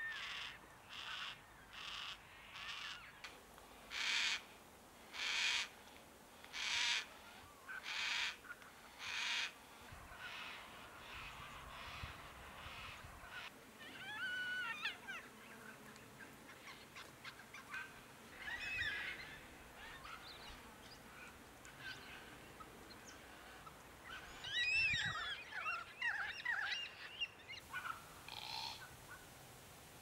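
Yellow-tailed black-cockatoos calling. First comes a run of harsh, rasping calls repeated about once a second. Then, from about halfway through, come scattered wavering calls that rise and fall, several overlapping near the end.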